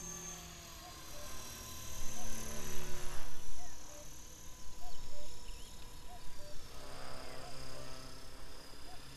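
Electric 450-size RC helicopter flying overhead, a steady motor-and-rotor whine. It grows louder and rushier between about two and six seconds in.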